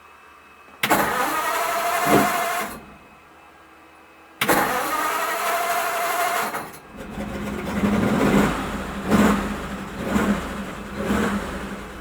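1941 pickup's starter cranking the damp engine twice: a first burst of about two seconds that doesn't catch, then a second one that catches about seven seconds in. The engine then runs with its revs rising and falling several times. It is cranked with the accelerator floored because the engine is probably flooded.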